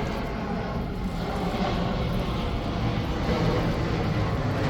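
Airplane flying over, a steady low rumble and rush of jet engine noise that slowly grows louder.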